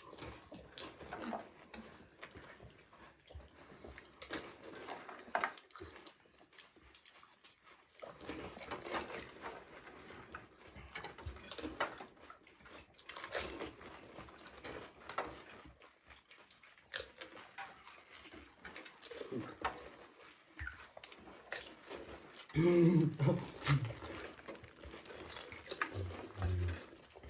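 Crisp pani puri shells being bitten and chewed, giving scattered short crunches and crackles with quieter gaps between them. A brief muffled vocal sound comes about 23 seconds in.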